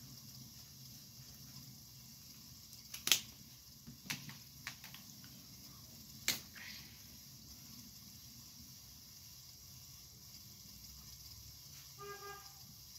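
Plastic marker caps snapping on and off: a handful of sharp clicks, the loudest about three seconds in, with quiet room tone between.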